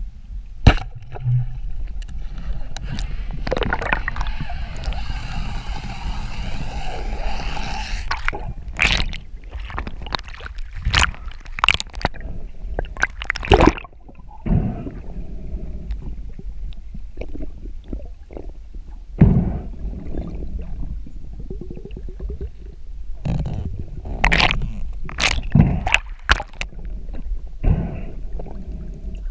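Underwater sound through a camera housing: water rushing and gurgling, broken by many sharp knocks and clicks of gear. The loudest is a sharp crack under a second in.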